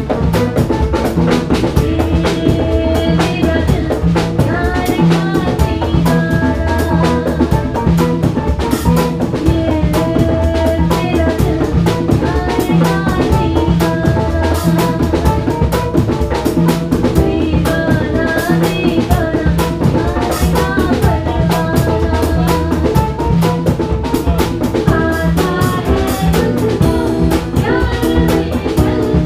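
A live band playing a steady groove: drum kit and conga drums keep the rhythm under piano and electric guitar.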